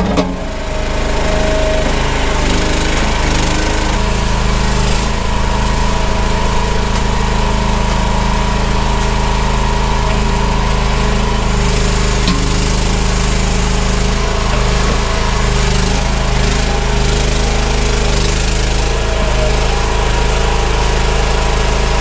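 Engine of a Chinese EGN EG360 tracked mini skid steer running steadily while it works.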